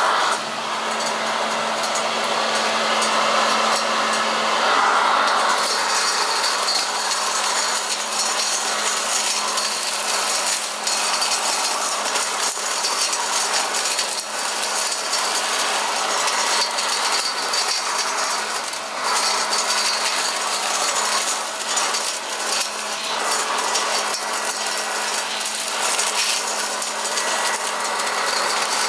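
Toro Ultra Blower/Vac electric leaf vacuum running steadily in vacuum mode, a constant motor hum under a rushing of air, sucking up a pile of leaves and street debris. Many small clicks and rattles come through as the debris is drawn through its metal impeller.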